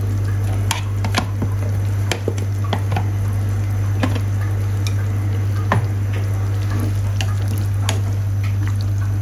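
Pot of tomato noodle-soup broth simmering on the stove: scattered small pops and clicks of bubbling broth over a steady low hum.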